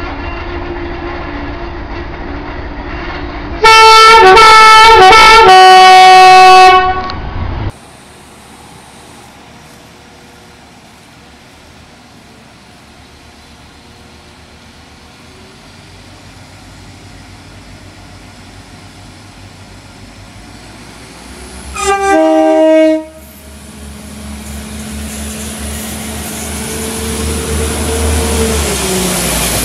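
Train horns. After a steady tone, a very loud two-tone horn sounds for about three seconds, first one chord and then a lower one. After a stretch of quieter rumbling, a short horn blast comes about 22 seconds in, then a train approaches with swelling noise and tones that fall in pitch near the end.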